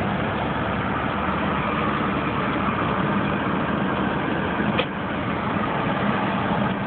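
Steady road and engine noise heard inside a moving car's cabin, with a single brief click a little before five seconds in.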